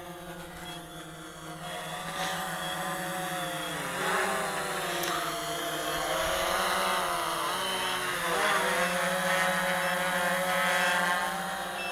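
Quanum Nova quadcopter's motors and propellers whining in flight. The pitch dips and climbs again twice as the throttle changes, and it grows louder through the middle as the drone comes closer.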